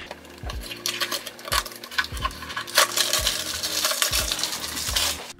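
Clear plastic wrap crinkling and crackling as it is peeled off a small cardboard box by hand, with a few sharper snaps among the crackle.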